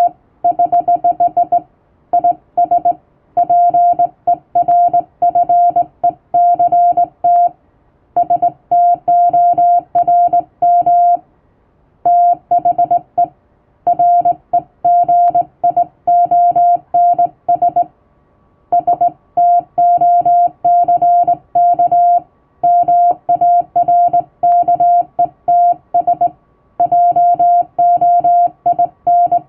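Morse code (CW) sent by hand on a straight key: a steady beep keyed on and off in dots and dashes, in runs of characters separated by short pauses.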